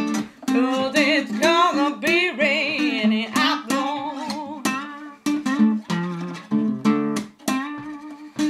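Acoustic guitar playing a slow blues, picked notes with sharp attacks. A wavering, bending melody line rides over it for the first three seconds or so, then the guitar plays on alone.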